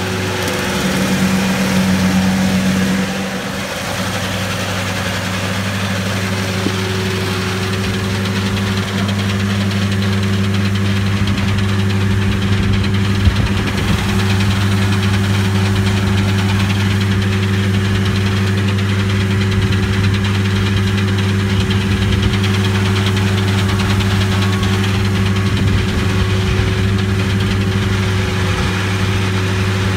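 Heavy machinery engine running steadily at a constant speed, a loud, unbroken drone.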